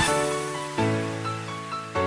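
Background music: the dance beat drops out and sustained chords ring and fade, with a new chord entering just under a second in.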